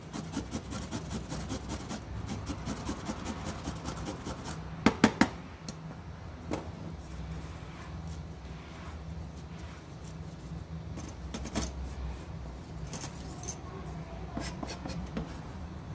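Carrot being grated on a stainless-steel box grater, quick rasping strokes about three a second. About five seconds in come three sharp knocks, then quieter scattered clicks and rubbing as the grater is handled and put down.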